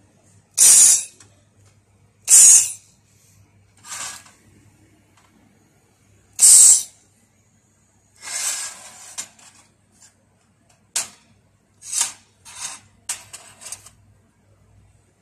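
Handheld fiber laser welder firing short welds on thin steel sheet: a series of sharp hissing bursts, most about half a second long, one of about a second near the middle, and quicker, shorter ones near the end. A faint steady low hum runs underneath.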